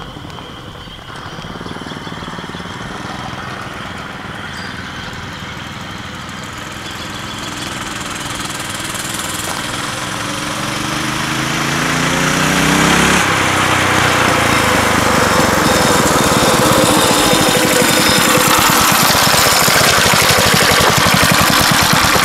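Mini bike's small engine at full throttle with its governor disconnected, growing louder and higher as it approaches, then dropping sharply in pitch as it passes close by about 13 seconds in. It stays loud afterwards as the revs fall.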